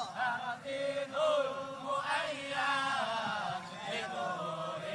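A group of voices singing an Islamic devotional chant (sholawat) together, in long, wavering melodic lines.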